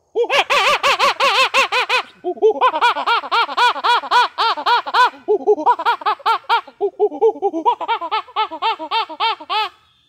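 A man doing a vocal imitation of a monkey call: loud, rapid high hoots, each rising and falling in pitch, about seven a second, in four bursts with short breaks between them.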